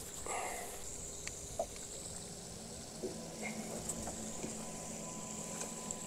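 Gentle water sloshing and lapping around a snook held by the lip at the surface beside a small boat, with a few faint clicks and knocks.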